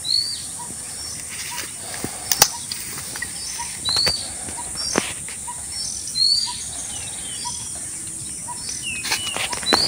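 Small birds chirping in short, curving calls every couple of seconds over a steady high hiss, with a few sharp clicks.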